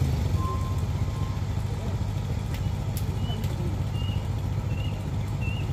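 A heavy vehicle's engine running steadily with a low pitch, with faint voices in the background and a few short high chirps.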